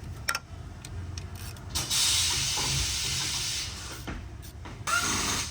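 Power ratchet spinning out the 8 mm valve cover bolts, a steady hiss for about two seconds in the middle, with light clicks of the tool and bolts around it.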